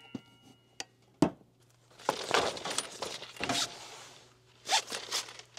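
Handling noise from the mini-split's metal line-set fittings: a few sharp metallic clicks and clinks, the loudest about a second in, with a stretch of rustling in the middle and more clicks near the end.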